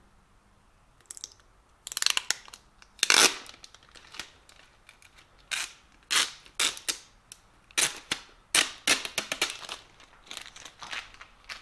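Clear protective plastic film being peeled off a new machine ID tag and crumpled in the hands: irregular sharp crackling and crinkling in bursts.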